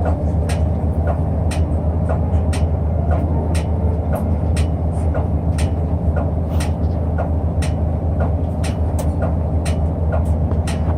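City bus running: a steady low engine drone, with frequent sharp clicks and knocks, about two or three a second.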